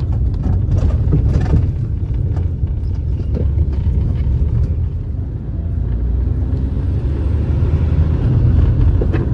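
A car on the move: a steady low rumble of engine and road noise, with a few light knocks in the first couple of seconds.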